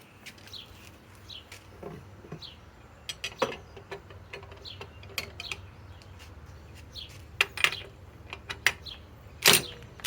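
Scattered light metallic clicks and clinks of tools and sockets being handled, with a louder clank near the end; the impact wrench itself is not running.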